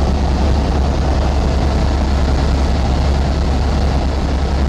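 Helicopter in flight, heard from inside the cabin: a loud, steady drone of engine and rotor.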